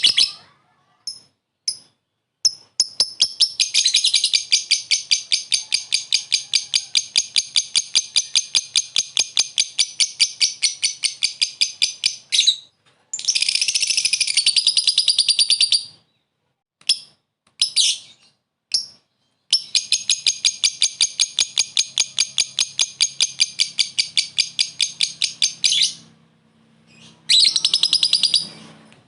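Lovebird 'ngekek': long runs of rapid, evenly pulsed, shrill chattering, each lasting several seconds, broken by short pauses with a few single chirps between them. The calling is used to lure and provoke rival lovebirds into answering.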